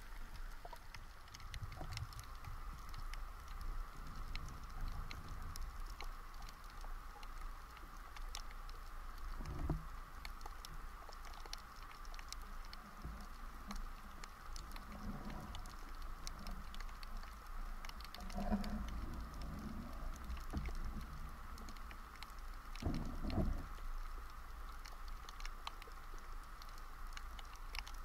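Underwater ambience over a shallow rocky seabed as picked up by an action camera in its housing: a faint steady crackle of scattered clicks over a constant hiss, with a few low muffled thumps about a third of the way in, near the middle and about four-fifths through.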